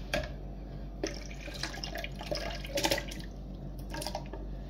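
Cooked carrot chunks and their liquid tipped from a glass bowl into a plastic blender jug of orange juice, splashing and plopping in a few irregular bursts, loudest about three seconds in.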